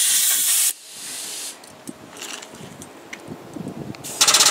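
Compressed air hissing out in a short burst from a quick-connect coupler on an air-hose manifold, then a fainter hiss and a few small clicks from the couplers being handled. Near the end a pneumatic-driven hydraulic jack's air pump starts up, running with a fast, even pulsing.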